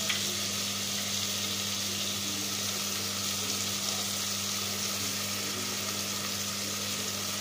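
Chopped onions frying in hot oil in an aluminium pressure cooker: a steady sizzling hiss as they soften toward golden brown, with a steady low hum underneath.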